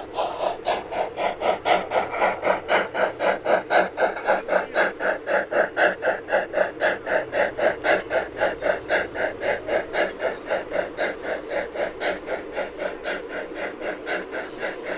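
G-scale model steam locomotive's sound unit chuffing in a fast, even rhythm as the engine runs, growing slightly quieter toward the end.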